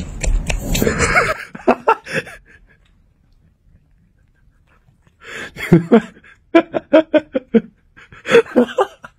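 A person laughing in three bursts of quick, pitched pulses, starting about five seconds in, after a brief stretch of rustling noise at the start.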